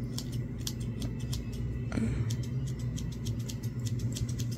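Steel scissors snipping through a fringe of hair, a quick, irregular run of short, crisp snips over a steady low hum.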